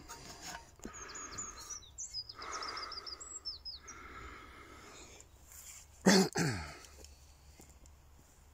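Small birds singing, a run of quick high chirps through the first few seconds, then one loud sudden sound with a falling pitch about six seconds in.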